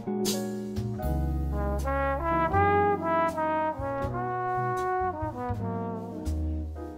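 Jazz background music: a trombone plays a slow melody over a bass line, with light cymbal ticks and a cymbal hit just after the start.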